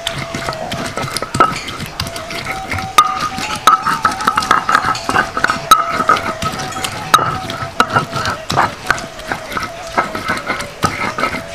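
Stone grinder crushing and scraping wet shallots and tomatoes on a flat stone mortar, with rapid irregular knocks and grinding scrapes of stone on stone as a chilli-onion spice paste is ground by hand.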